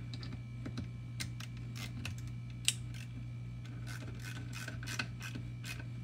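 Nut driver turning the worm screw of a steel hose clamp: small irregular metal clicks and ticks, with one sharper click a little under halfway, over a steady low hum.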